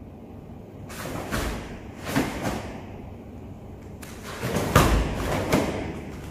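Karate gi cloth swishing and snapping with stepping and punching moves, with bare feet thudding on foam mats several times. The loudest thud comes about five seconds in.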